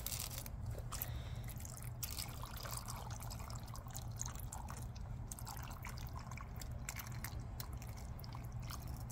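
Water poured in a thin stream from a glass pitcher into a rubber rock-tumbler barrel packed with plastic tumbling pellets and agates, trickling and splashing steadily over the media.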